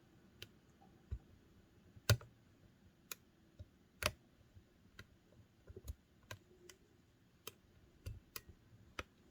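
Irregular sharp clicks of a Petersen Gem lock pick and tension wrench working the pins of an Ace Hardware 44mm padlock, about one a second, some in quick pairs, the loudest about two and four seconds in. The lock is still closed and the pins are still being set.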